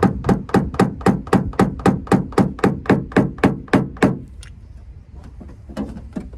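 Small hammer rapping a plastic-tipped knockdown punch against the steel quarter panel of a 2021 Dodge Challenger, tapping down high spots in paintless dent repair: quick, even taps about four a second that stop about four seconds in, followed by a few fainter knocks.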